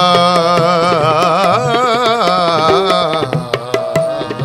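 Raag kirtan: a voice sings a long ornamented melismatic run, held without words, over harmonium and tabla. The voice drops out about three seconds in, leaving harmonium notes and crisp tabla strokes.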